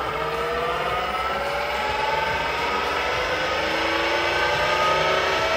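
A Velvet Drive 5000 marine transmission spun in gear by an electric-motor test dyno, running as a steady whine that slowly rises in pitch as the speed is brought up.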